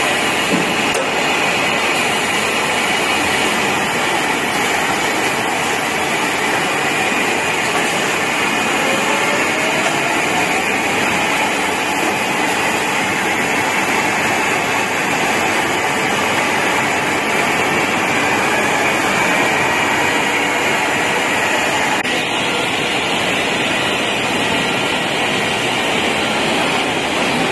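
Receipt paper roll production machine running steadily with a loud, even mechanical noise. A faint rising whine comes in about nine seconds in.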